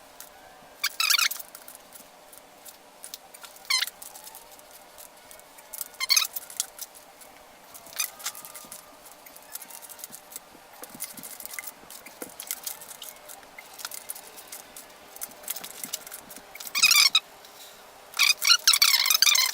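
Ratchet of a 3/8-inch digital torque wrench clicking in short quick runs, a few seconds apart with a longer spell near the end, as the cylinder head stud nuts are pulled down to the first torque step.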